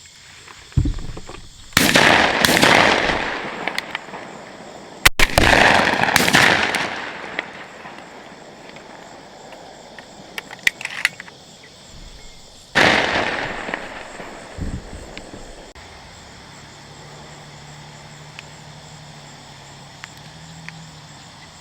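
Shotguns firing at doves: about five loud blasts in clusters, two close together about two seconds in, two more around five to six seconds, and one near thirteen seconds, each trailing off in echo, with a few fainter distant shots between.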